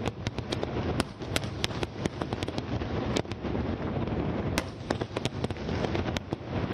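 Aerial fireworks shells bursting in quick succession: many sharp bangs, several a second, over a continuous low rumble of further explosions. The bangs thin out for about a second past the middle.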